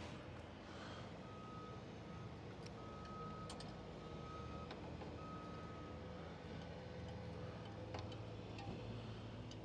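Electronic warning beeper sounding a single high tone in five or so beeps of uneven length over a few seconds, then stopping, with a steady low hum underneath and a few light metallic clicks from hand tools.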